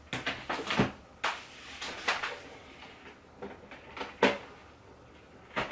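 Plastic clicks and knocks from handling a portable bubble-jet printer, its casing being worked open, with a sharper click near the end.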